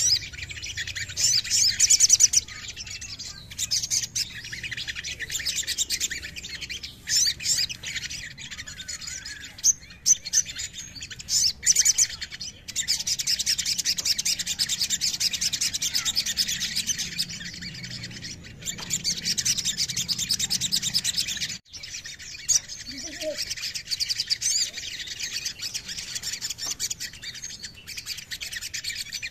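Male olive-backed sunbird singing: high, rapid rolling trills and sharp chirps, in long runs broken by short pauses.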